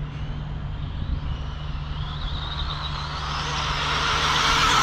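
Stretched Arrma Typhon RC car's brushless motor whining higher as it speeds up, with a rushing noise that grows louder toward the end as the car comes closer.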